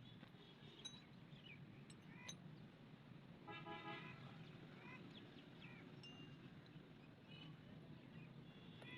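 Faint background hum with scattered short chirps, a brief honk lasting about half a second some three and a half seconds in, and a few faint clicks.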